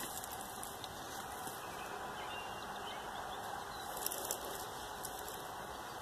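Faint rustling and crackling of dry leaves and sawdust underfoot over a steady background hiss, with a few sharper crackles about four seconds in.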